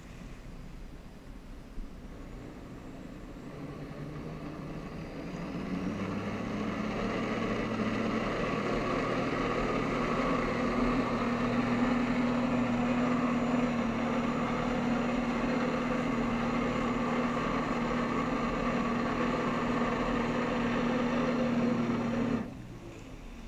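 Personal watercraft engine powering a Flyboard, building over several seconds to a steady high-throttle drone, then dropping off suddenly near the end as the throttle is let off.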